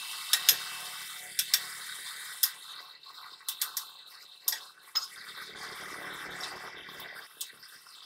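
A hammer striking the steel of a truck's front brake backing plate and steering knuckle, giving sharp metallic clanks at irregular intervals, about ten blows in all, some in quick pairs and triples.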